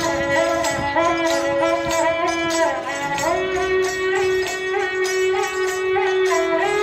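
Indian folk music played live by a street musician: a melody with slides and bends over a steady low drone, with light regular clicks or jingles keeping time.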